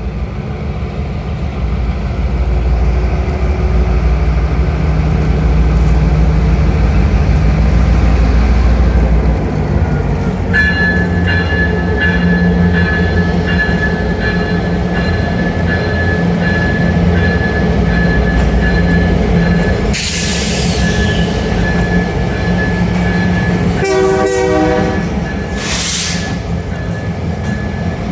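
Canadian National freight train of autorack cars passing. A diesel locomotive's deep rumble comes first. From about ten seconds in, steady high wheel squeal and clicking of the cars on the rails take over, with short bursts of noise in the last third.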